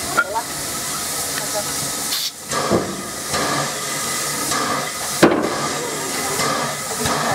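Steady hiss of steam from a standing F class steam locomotive, broken by a few sharp metallic clanks from the coupling and Westinghouse air-brake hoses being handled between engine and carriage; the loudest clank comes about five seconds in.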